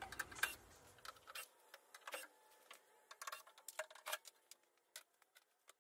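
Faint, scattered light clicks and knocks from hands handling and checking built-in plywood shelving, at uneven intervals.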